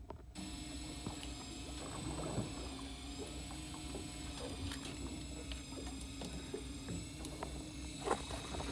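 Electric fishing reel winding in line against a hooked fish: a steady motor whine with several high tones that switches on just after the start and cuts off at the end, its pitch sagging briefly about three seconds in. Small scattered clicks sound over it.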